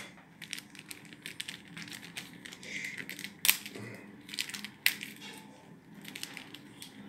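Crinkling and rustling of a small clear plastic packet of guitar picks being opened and handled, with light clicks throughout and two sharper clicks about three and a half and five seconds in.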